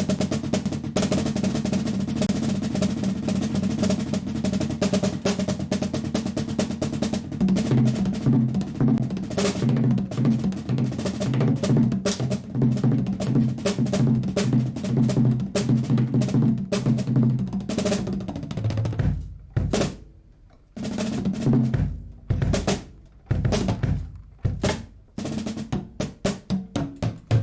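Muted Pearl drum kit played with sticks: fast, continuous rolls for most of the time, then from about two-thirds through, separate strokes and short fills broken by brief gaps.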